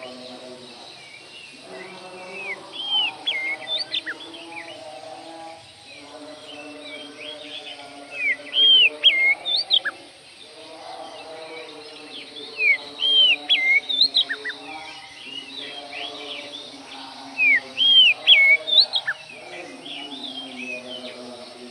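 Oriental magpie-robin singing: loud clusters of rich, swooping whistled notes, repeated four times about five seconds apart. A lower layer of steady tones that shift pitch runs underneath.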